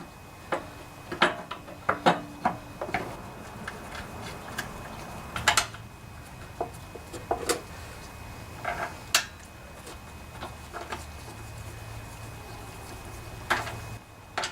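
Hand tools and small metal parts clicking, clinking and knocking irregularly, some strikes ringing briefly, as the engine's fuel line and carburetor parts are refitted.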